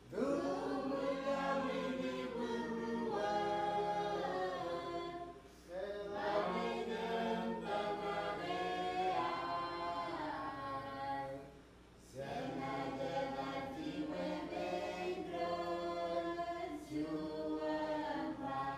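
Background music: a choir singing in long held phrases, with short pauses about five and a half and twelve seconds in.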